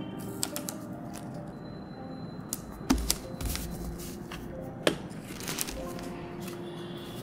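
Paper being handled and pressed down by hand on a wooden desk: rustling and light taps, with two sharp knocks about three and five seconds in, over soft background music.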